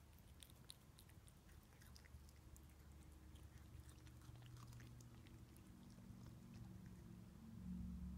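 A cat chewing pieces of Chinese broccoli, faint scattered crunching clicks, over a faint low steady hum that grows louder near the end.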